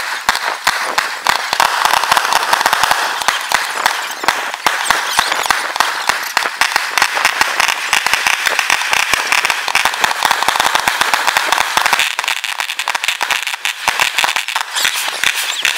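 Fireworks display: a dense, unbroken crackle of many small bangs, with sharper, deeper reports scattered through it.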